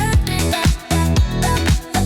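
Dance-pop track between sung lines: a steady four-on-the-floor kick drum, about two and a half beats a second, over a sustained synth bass, with short pitched slides above.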